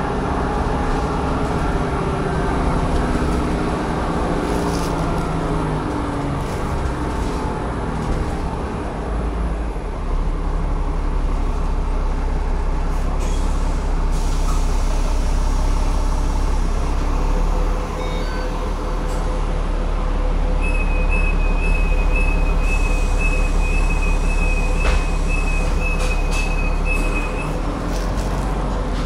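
Cummins ISLe 8.9-litre six-cylinder diesel and ZF six-speed automatic gearbox of a double-decker bus heard inside the cabin, the engine note falling over the first several seconds and then settling into a low steady rumble. About two-thirds of the way through, a run of evenly spaced high beeps sounds for several seconds.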